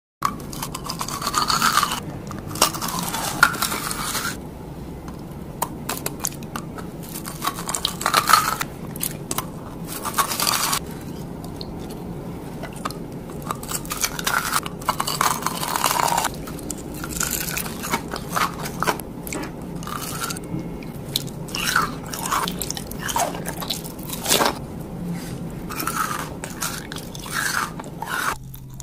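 Close-miked biting and chewing of gem-shaped crystal jelly candy: crisp, crackling crunches of its sugar crust come in irregular bursts, with quieter stretches of chewing between.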